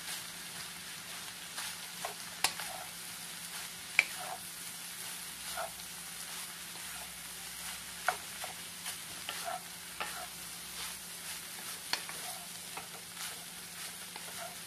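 Rice frying in a metal pan, sizzling steadily while a wooden spatula stirs and tosses it, knocking against the pan irregularly. The loudest knocks come about two and a half and four seconds in.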